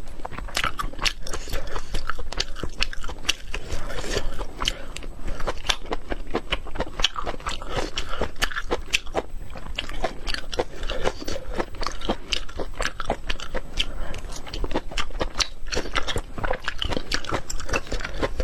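Close-miked eating: a person biting and chewing food with continuous wet mouth clicks and smacks, irregular and dense.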